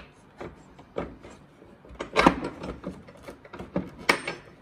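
Scattered taps and clicks of a long hex-head bolt being wiggled down beside plastic fairing into its hex-shaped hole, with the loudest knock about two seconds in.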